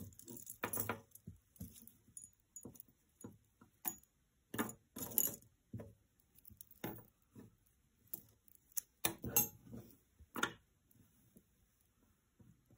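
Jewelry clinking and jingling as it is handled: metal pieces and beads knocking together in irregular bursts of small clicks, loudest about five seconds in and again around nine to ten seconds in.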